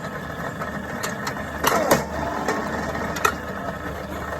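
TOYO C33 rebar cutter running steadily under test, its motor and drive humming. Two loud sharp clacks come about one and a half to two seconds in, and another a little over three seconds in.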